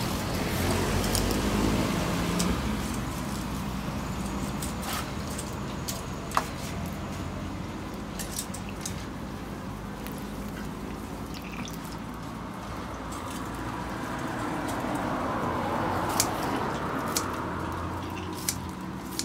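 Scattered light metal clicks and taps from tongs and a metal seasoning shaker handling crispy fried squid, with a sharp snip of kitchen scissors near the end, over a steady hiss that swells about three-quarters of the way through.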